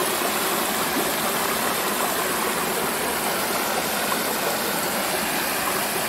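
Shallow stream flowing, a steady rush of water.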